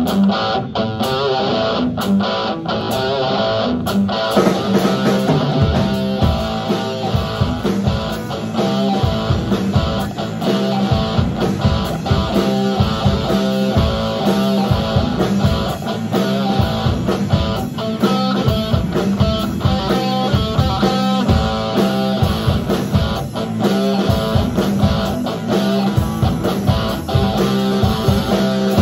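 Live rock music: a band of two amplified electric guitars with drums, playing on stage.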